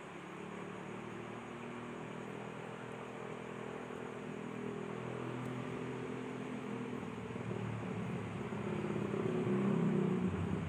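A motor vehicle's engine humming steadily, growing slowly louder, loudest near the end.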